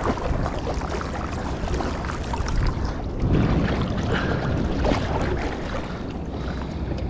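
Water sloshing and splashing around an inner-tube float as swim fins kick through the sea, louder for a stretch in the middle.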